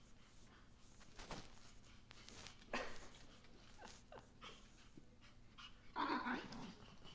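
Miniature schnauzer and a small fluffy dog playing, with short pitched dog cries scattered through, the loudest about six seconds in, and a few sharp clicks in between.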